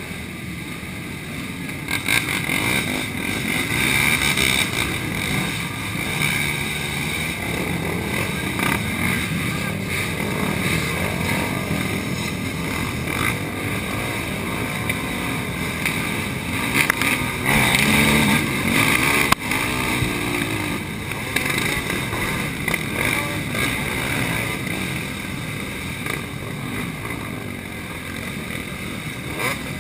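Racing quad (ATV) engines revving hard as the quads are ridden through deep mud, the pitch rising and falling with the throttle. The revving is loudest a little over halfway through.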